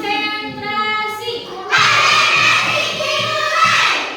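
Young children's voices singing together: held notes at first, then a louder stretch of many voices at once that ends near the close.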